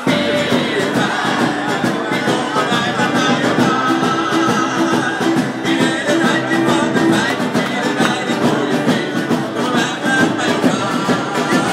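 Loud amplified music with singing and a steady beat.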